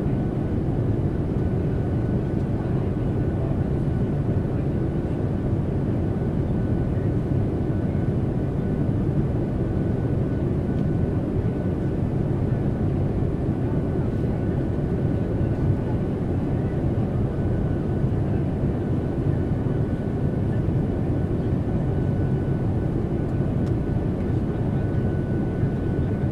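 Airliner cabin noise: a steady, even rumble of engines and rushing air, heaviest in the low end, with a faint steady whine above it.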